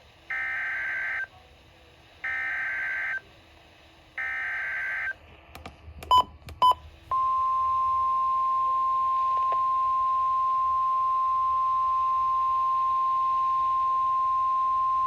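Weather-radio tornado-warning alert: three one-second bursts of shrill digital header data, two short clicks, then a single steady warning tone that starts about seven seconds in and holds. These are the SAME header bursts and the 1050 Hz alarm tone of NOAA Weather Radio that precede a warning message.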